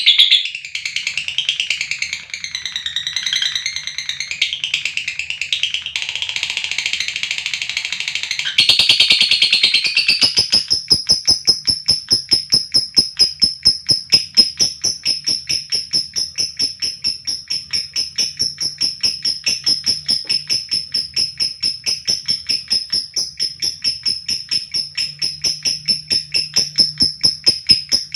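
Lovebird calling: a few seconds of shrill, warbling chatter, then, from about ten seconds in, a long 'ngekek' trill of rapid, evenly repeated sharp high notes on one steady pitch.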